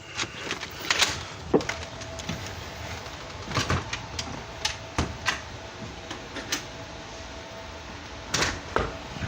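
A plastic DVD case and its packaging being handled: scattered clicks, knocks and rustling, with a cluster of louder clicks near the end.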